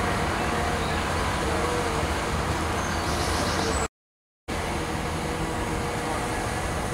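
Diesel engine of a Caterpillar tracked excavator running steadily as the machine works, cutting out to silence for about half a second around four seconds in.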